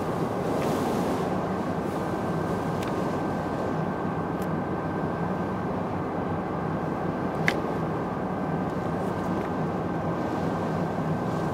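Steady engine drone and water noise inside the cabin of a vaporetto (water bus), with a thin steady whine over it. A few light clicks sound through it, the sharpest about seven and a half seconds in.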